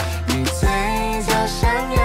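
Pop song with a steady drum beat.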